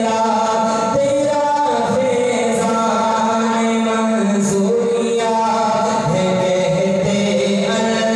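A man reciting a naat unaccompanied into a microphone, singing long held notes that glide slowly from one pitch to the next.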